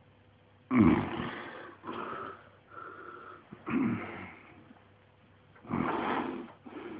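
A man snoring loudly in deep sleep, rasping on the in-breath as well as the out-breath, with a faint whistle in one of the weaker snores. Three loud snores come about a second in, around four seconds in and near the end, each followed by a weaker one.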